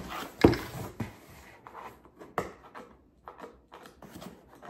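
Cardboard packaging being worked open by hand without a knife: a knock about half a second in, then scattered crinkles, scrapes and taps.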